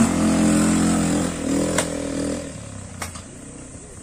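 Quad bike (ATV) engine running under throttle as it pulls away, then fading about two and a half seconds in. Two sharp clicks, one a little under two seconds in and one about three seconds in.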